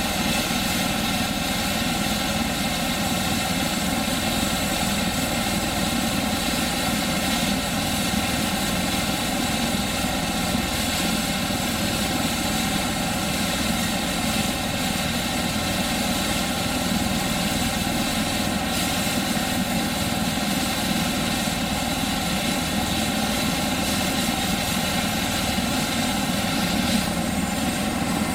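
Airbus EC145 T2 (H145) helicopter running on the ground: its twin Turbomeca turboshaft engines whine steadily and the main rotor turns, a loud, even sound with no change in pitch.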